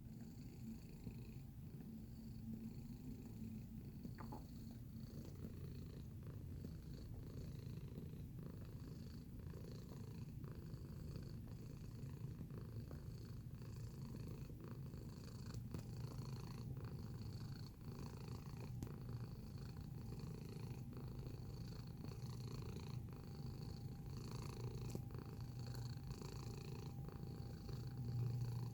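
Domestic cat purring close to the microphone: a steady, low rumbling purr that carries on without a break.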